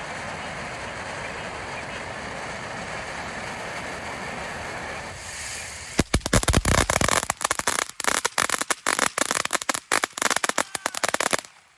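A string of firecrackers going off: a rapid, irregular run of sharp cracks lasting about five seconds, starting about halfway in and cutting off suddenly. Before it, a steady hissing background noise.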